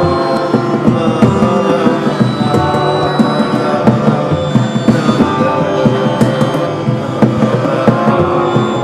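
Live freeform instrumental music: busy hand-drum percussion with frequent sharp strikes under sustained, held pitched tones.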